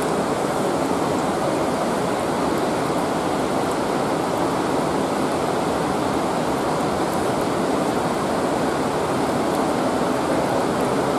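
Hot thermal spring water running steadily from the fountain along its stone channel, an even rushing with no breaks.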